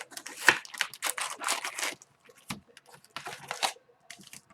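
Trading-card pack wrappers being torn open and crinkled by hand: irregular ripping and rustling bursts, with a short pause near the middle.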